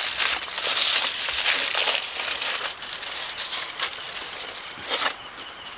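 Aluminium foil crinkling and crackling as hands press and smooth it into a round dish to line it. Loudest for the first couple of seconds, then quieter.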